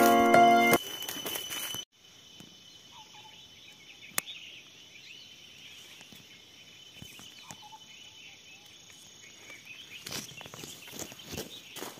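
Piano music stops about a second in, leaving a steady high buzzing chorus of forest insects with a few faint bird chirps. A short run of soft rustling and knocks comes near the end.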